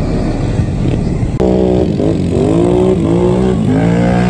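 ATV engines running. About a second and a half in, a close quad's engine revving takes over, its pitch dropping and climbing back twice as the throttle is worked.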